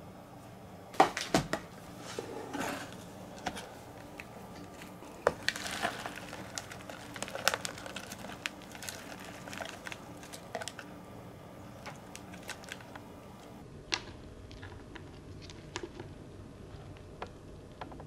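Live giant mealworms (superworms) crawling over one another in a plastic tub: a crackling rustle with scattered small clicks. About a second in, the tub is handled, giving a few louder knocks and rustles.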